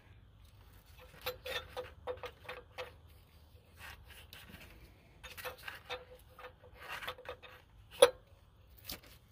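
18 mm steel wrench on the nut of an air-line fitting at a Cummins ISX15 solenoid valve: two runs of quick, light metallic clicks, then one sharp loud crack near the end as the stuck nut breaks loose.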